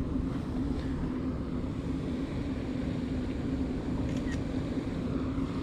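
Steady low outdoor rumble with no clear single source, and a few faint clicks about four seconds in.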